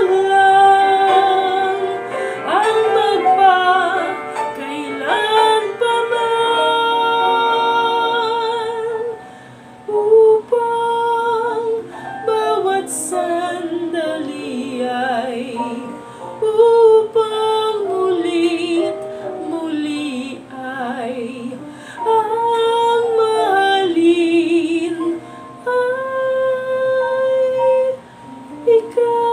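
A woman singing a slow ballad, holding long notes with vibrato, over a soft instrumental backing track.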